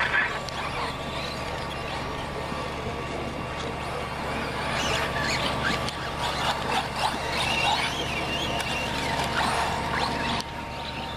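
1/10-scale 4WD RC buggies racing: the high whine of their motors rises and falls as they accelerate and slow through the turns, over a steady low hum.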